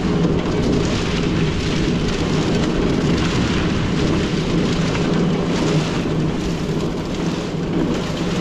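Portable drum concrete mixer running steadily, its drum churning concrete mix as it is tipped to pour the load into a wheelbarrow.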